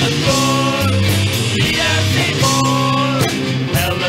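Indie rock band playing: guitars, bass and drums, loud and steady.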